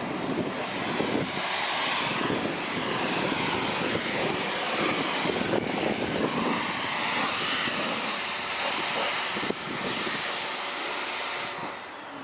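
Karcher pressure washer spraying a high-pressure jet of water, a steady loud hiss that cuts off suddenly near the end.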